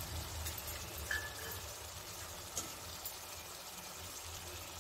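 Tamarind water heating in a kadai over a ghee-fried tempering: a faint, steady simmer with a low hum underneath and a few light ticks.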